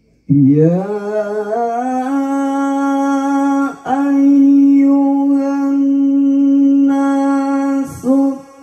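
A male qori's voice reciting the Quran in the melodic tilawah style, amplified through a microphone and PA system. The voice slides up about an octave into a long held note, breaks briefly, holds a second long note, and starts a new phrase near the end.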